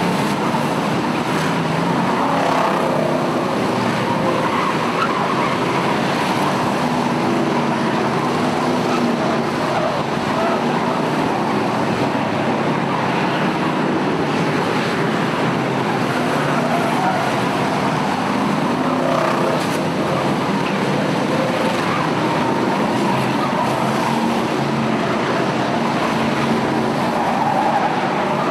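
A pack of V8 enduro stock cars racing together, their engines running in a steady, dense blend.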